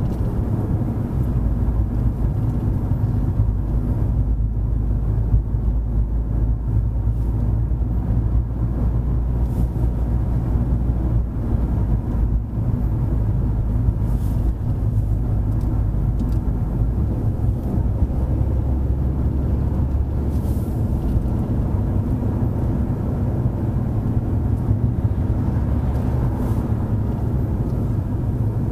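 Car driving along, a steady low engine and road-noise rumble whose pitch shifts a few times.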